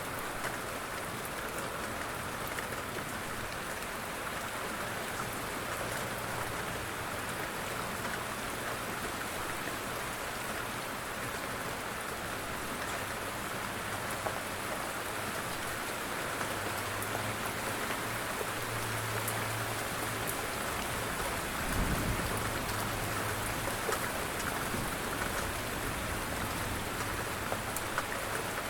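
Light rain falling steadily, with scattered drop ticks over an even hiss. There is one brief low thump about three quarters of the way through.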